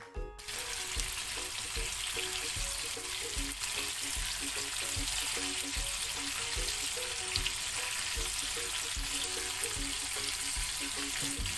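Coated chicken pieces deep-frying in hot oil in a pan, giving a steady, dense sizzle that starts abruptly just after the beginning.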